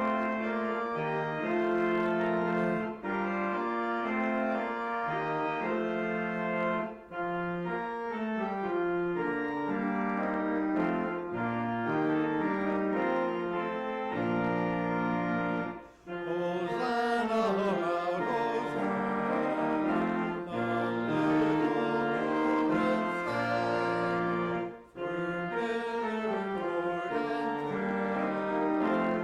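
Organ playing a slow piece in sustained chords, phrase by phrase with brief breaks between. The sound turns brighter for several seconds about halfway through.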